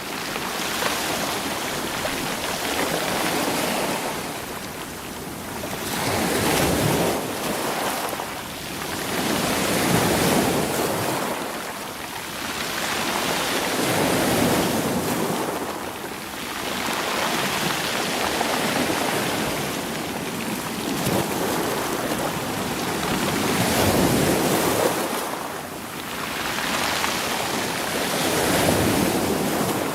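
Sea waves washing over a stony shore, each surge hissing up through the rolling stones and drawing back, about every four to five seconds.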